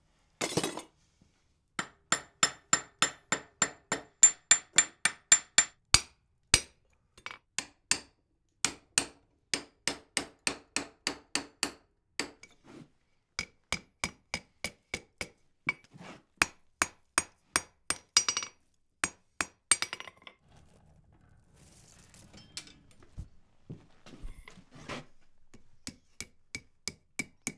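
Blacksmith's hammer striking wrought iron on an anvil: a quick, even run of about three blows a second, then slower, more spaced blows that stop about twenty seconds in. A few faint taps follow.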